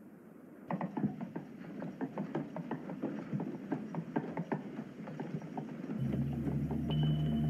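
Child's plastic tricycle rolling fast over a hardwood floor, its wheels clattering and rattling over the boards in a rapid irregular run of clacks that starts about a second in. Near the end a low steady hum comes in under it.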